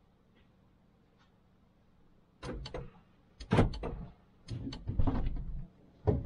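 Clicks, knocks and scraping from a car stereo head unit and plastic dash parts being handled and worked loose. They come in four short clusters, starting about two and a half seconds in.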